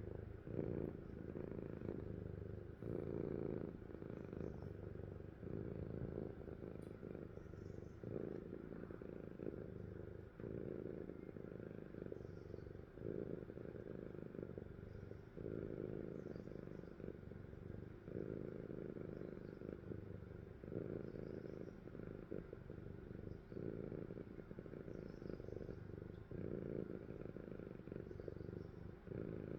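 A sleeping cat snoring: a low, continuous sound that swells and eases with each breath, about every two seconds.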